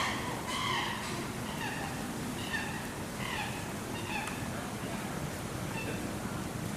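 A series of short, high-pitched animal calls, repeated every half second to a second and growing fainter.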